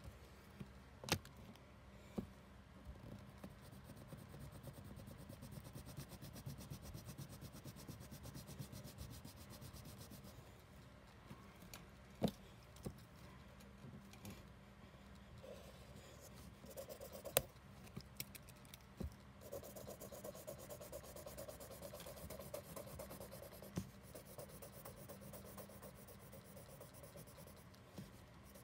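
Black pen rubbing back and forth on paper as dark shading is filled in, faint, with the scribbling strokes thickening about two-thirds of the way in. A few sharp taps stand out, the loudest around the middle.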